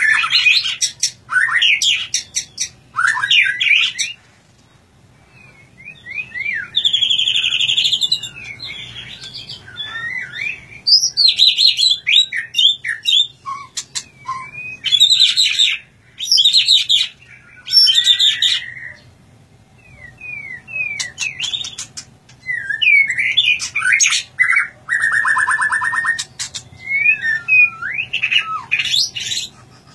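White-rumped shama (murai batu) singing: loud, varied phrases of whistled notes sliding up and down and fast rattling trills. The song breaks off twice for about two seconds, a few seconds in and again about two-thirds of the way through.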